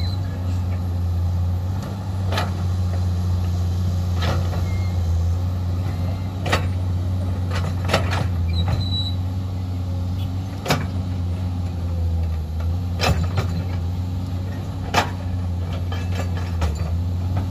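A Komatsu PC210-8 excavator's diesel engine runs steadily under digging load. Sharp knocks from the bucket striking earth and rock come about every two seconds, two close together around eight seconds in.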